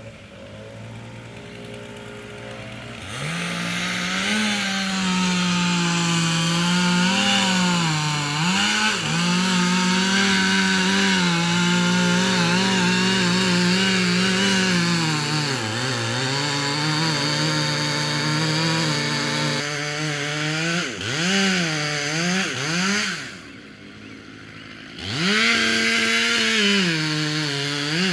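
Two-stroke chainsaw idling, then opened up to full throttle about three seconds in and held there, its pitch wavering as it works. Near the end it blips several times, drops back to idle briefly, then revs up again.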